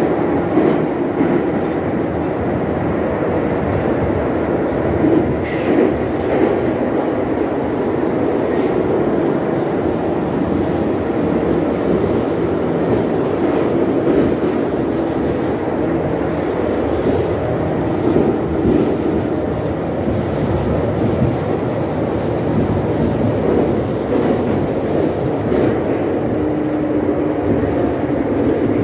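Running noise of an 81-717/714 'Nomernoy' metro car, heard from inside the car as it travels at speed: a steady rumble of wheels on rail.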